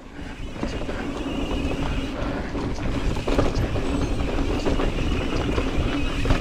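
Mountain bike riding fast along a dirt singletrack: a steady rush of tyre noise and wind on the helmet-mounted camera's microphone, with small rattles and clicks from the bike. It builds over the first second, then holds.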